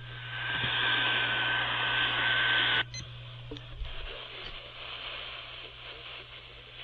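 Radio receiver static: a loud hiss with a faint steady tone in it that cuts off abruptly about three seconds in, leaving a quieter hiss, over a steady low hum.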